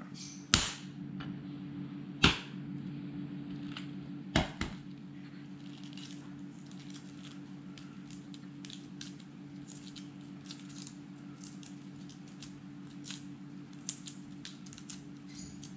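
Hot hard-boiled eggs being cracked and peeled: three sharp knocks of eggshell against a hard surface about two seconds apart, then a long run of faint small clicks and crackles as the shell is picked off, over a steady low hum.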